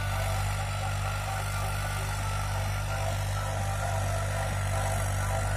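New Holland 3600 tractor's diesel engine running steadily with a low hum as it pulls a rotavator through the soil.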